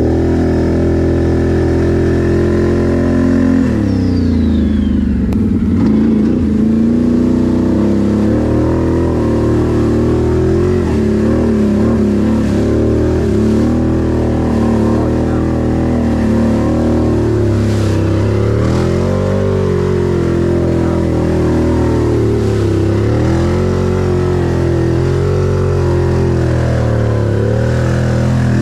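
Can-Am 1000R ATV's V-twin engine running hard under changing throttle. The revs hold high, drop sharply about four seconds in, then climb and fall again and again.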